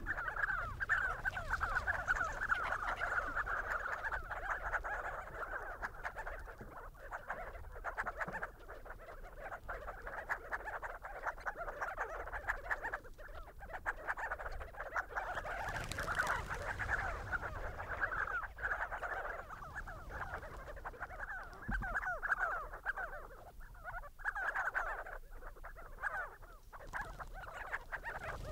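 A flock of sandgrouse calling together: a dense, continuous chorus of guttural, croaking calls from many birds.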